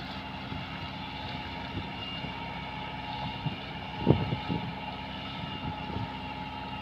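Steady engine-like drone holding several tones, with a few low thumps, the loudest about four seconds in.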